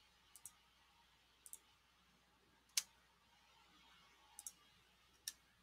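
A few faint computer mouse clicks in near silence, some in quick pairs and a couple single and sharper, spread a second or so apart.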